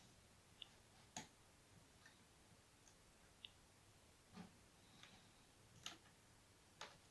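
Near silence broken by about six faint, short clicks and taps: plastic pry tools and guitar picks being handled against an iPad during a screen teardown.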